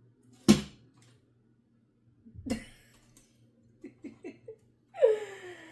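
Sewing machine parts being handled: a sharp knock about half a second in, a duller knock about two seconds later, then a few light clicks. Near the end a short vocal sound falls in pitch.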